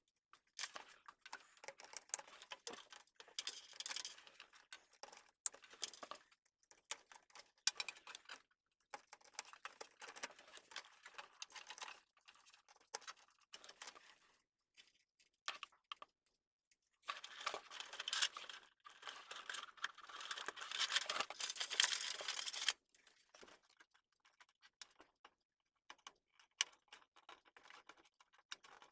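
Hands handling computer parts during a PC build: a run of small sharp clicks, taps and rustles with short pauses between, and a denser stretch of rustling and scraping lasting about five seconds about two-thirds of the way through.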